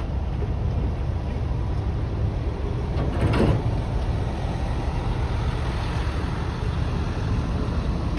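Steady low rumble of idling diesel trucks. About three seconds in comes a brief, louder rush of noise.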